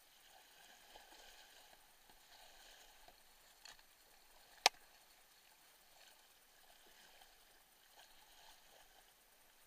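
Fast-flowing creek water rushing around a whitewater kayak, with soft paddle-stroke splashes coming and going. One sharp click stands out about halfway through.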